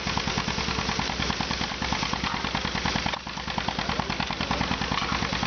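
Miniature steam traction engine driving a can crusher by a flat belt, running with a rapid, steady rhythmic beat of about eight strokes a second as the crusher's ram works on aluminium drink cans.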